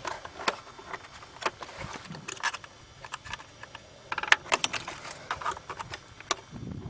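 Scattered light clicks and taps as hands work loose engine-bay parts and their plastic clips, with a quick run of clicks about four seconds in.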